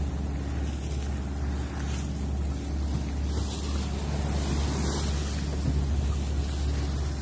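Steady low rumble of a sailing yacht under way, with wind and the wash of water along the hull.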